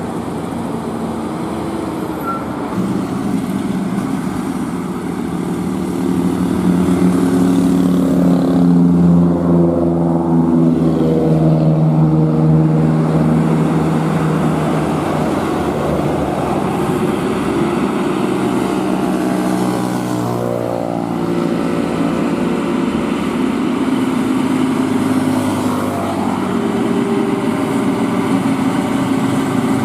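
Heavy diesel truck engine running hard, its pitch rising and falling as the throttle and gears change, loudest about a third of the way in.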